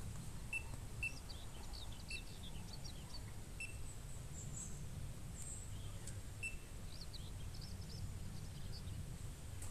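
Outdoor ambience of small birds singing, many short high chirps and trills, over a steady low rumble of wind. A handful of short, high single-pitch beeps come at irregular intervals.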